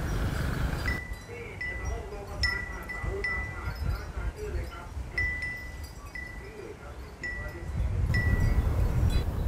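Wind chime ringing, about nine clear high notes struck irregularly, each ringing briefly and fading. Wind rumbles on the microphone in the first second and again near the end.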